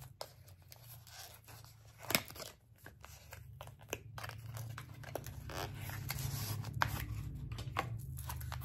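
Small paperboard box being handled and pried open by hand: scraping, rustling and sharp clicks of the cardboard flap, with one louder click about two seconds in.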